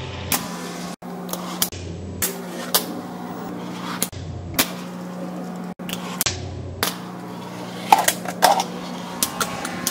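A wooden fingerboard's deck and wheels clacking on a granite countertop and a small ledge: sharp clicks of pops, landings and grinds, with a quick run of clacks about eight seconds in, over a steady low hum.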